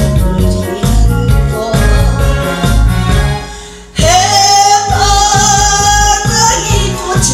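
A woman singing a Korean song into a microphone over backing music with a steady beat. The music dips briefly and comes back abruptly about four seconds in, where she holds one long note.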